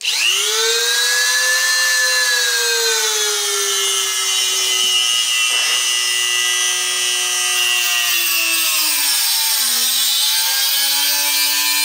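Handheld rotary tool with a small cut-off wheel running at high speed, grinding into a stripped, Loctite-seized screw head on a metal cover plate. A steady whine that sags in pitch as the wheel bites under load, dropping lowest about ten seconds in.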